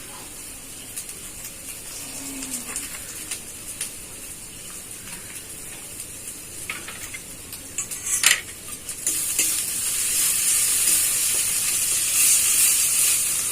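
Spice paste of onion, garlic, poppy seed and melon seed sizzling in hot oil in a kadai while being stirred with a spatula; a sharp knock of the spatula on the pan comes about eight seconds in, and the sizzling gets louder just after it.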